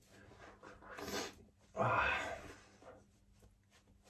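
Terry towel rubbed and patted over a freshly shaved face, soft rustling, with a short breathy vocal sound about two seconds in.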